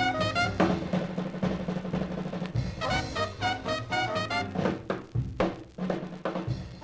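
Background music: a drum-led passage with snare and bass drum hits, between brass-led swing jazz sections.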